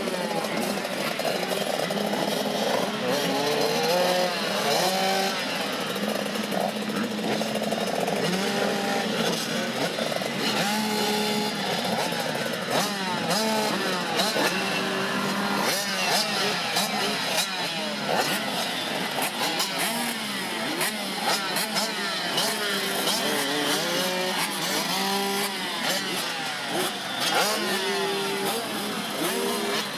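A group of 85cc two-stroke motocross bikes running together, their riders blipping the throttles so that many engine notes rise and fall over one another, as bikes held on the start line before the gate drops.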